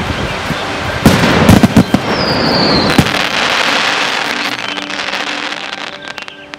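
Fireworks bursting: a quick cluster of sharp bangs about a second in, followed by a dense crackling shower that slowly fades, with a short falling whistle in the middle. Faint music runs underneath.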